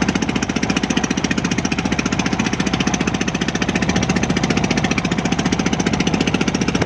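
Boat engine running steadily with a fast, even pulse.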